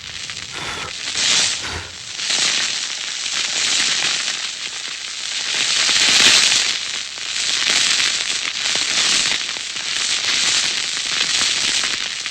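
A gunpowder fuse burning, sputtering with a continuous crackling hiss that swells and fades unevenly and is loudest about six seconds in.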